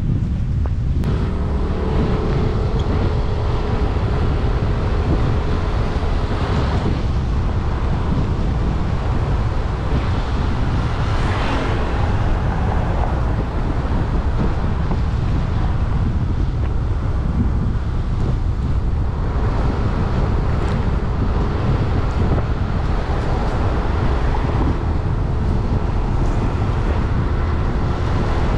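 Heavy rain with strong wind buffeting the microphone in a steady, loud rush. Motor vehicles pass on the road, with engine tones coming and going and one passing swell about eleven seconds in.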